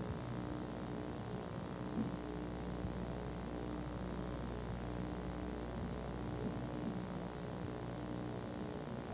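Steady electrical mains hum with hiss, the background noise of an old 1970s videotape soundtrack.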